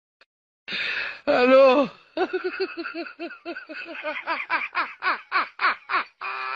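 A person laughing: a short cry, then a long run of quick 'ha-ha' bursts at about four a second, ending on a held note.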